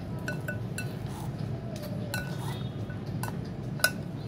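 A metal spoon and chopsticks clinking against a bowl while tossing shredded mango: a scatter of light, irregular clinks, each with a short ring, the loudest a little before the end.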